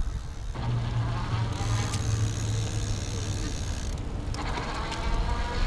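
Electric bike's 500-watt geared rear hub motor whining under power while riding, over wind rumble on the microphone. Near the end the whine climbs in pitch as the bike gains speed. It is noisier than some motors.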